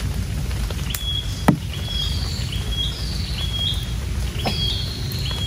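A small animal calls over and over, about every 0.7 seconds: each call is a high falling note ending in a short flat whistle. Under it runs a steady low rushing noise, and about a second and a half in there is a single sharp click.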